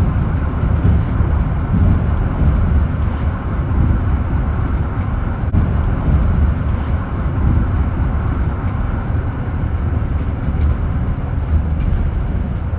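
Steady running noise of a guided bus under way, heard from inside: a deep engine and running-gear rumble with a smooth, even hiss over it.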